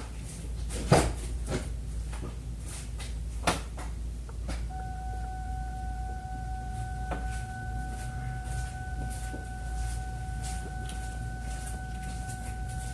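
Sharp clicks about one and three and a half seconds in, with faint regular ticking, about two a second, typical of a Ford Taurus's turn-signal flasher running. About five seconds in, a steady electronic tone comes on and holds.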